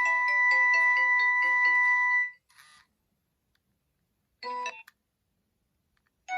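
Nokia 2600 ringtone playing: a quick electronic melody over a held high note, ending about two seconds in. After a pause comes a brief half-second snatch of tones, and the next ringtone starts right at the end.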